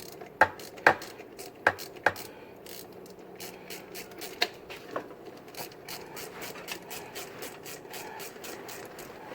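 Hand ratchet wrench clicking as a fastener is turned: a few loud, sharp clicks in the first two seconds, then a run of lighter, quicker clicks, about four a second.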